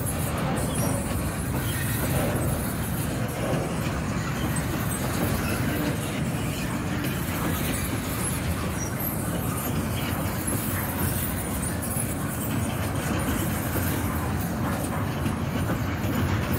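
Freight train of double-stack container well cars rolling past, a steady rumble of steel wheels on the rails.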